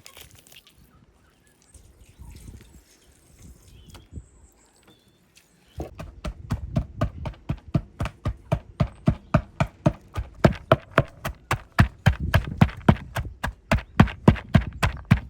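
Quiet at first. About six seconds in, a fast, even run of sharp knocks begins, about four or five a second.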